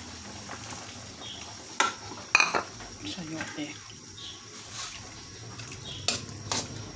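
Plate and metal ladle clinking against a steel wok as chayote pieces are tipped into simmering broth and stirred in. There are a few sharp clinks about two seconds in and two more near the end.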